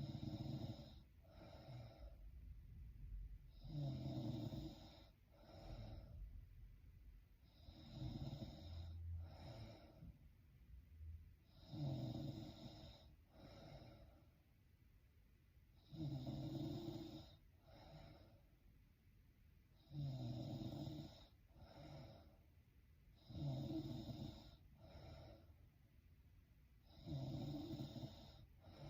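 A woman snoring in her sleep, faint and regular: about eight snores roughly four seconds apart, each a longer snore followed by a short second sound.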